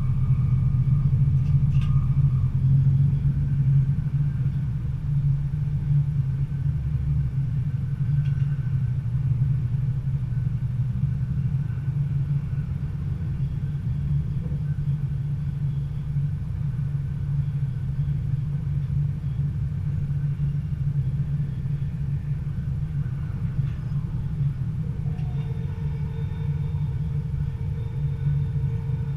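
Stadler GTW diesel-electric train running along the line, heard from the driver's cab: a steady low rumble of the diesel power pack and the wheels on the rails. A faint higher steady tone joins near the end.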